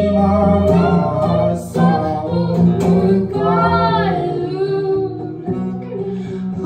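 Live acoustic duet: a woman and a man singing to an acoustic guitar.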